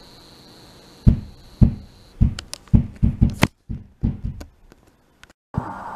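A series of about ten dull thumps and knocks at an irregular pace, starting about a second in and stopping a little after four seconds. Near the end the sound drops out entirely, then a steady hiss of room noise starts.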